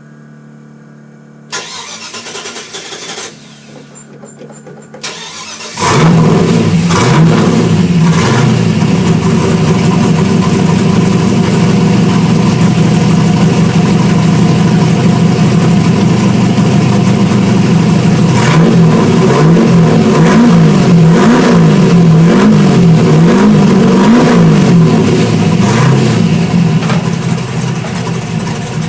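Holden 253 V8 engine being cranked and catching about six seconds in, then running loud. In the second half it is revved up and down several times before easing back toward idle.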